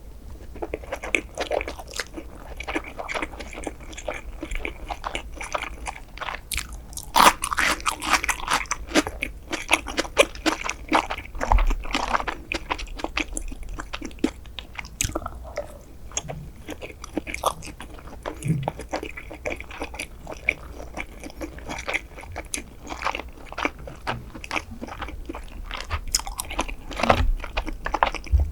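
Close-miked chewing and biting while eating sushi: a steady run of wet mouth clicks and snaps, busiest from about seven to eleven seconds in.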